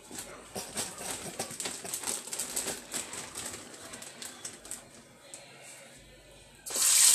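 Plastic zip-top bag of frozen french fries crinkling and crackling as it is worked open, then near the end a sudden loud, steady sizzle as the frozen fries go into hot frying grease.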